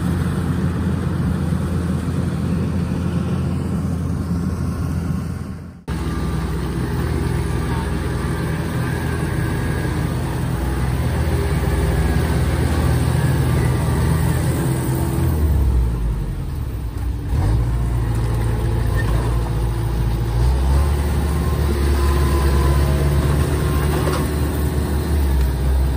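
Diesel engine of a Kubota DC-105X rice combine harvester running steadily. There is a sudden break about six seconds in, then the engine runs on as the combine travels over a muddy track, its revs dipping and recovering a little past the middle.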